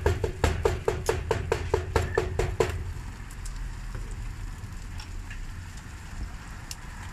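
A large knife chopping cooked meat rapidly on a cutting board, with about five ringing strokes a second. The chopping stops about three seconds in, and only quieter background noise follows while the meat is scooped up.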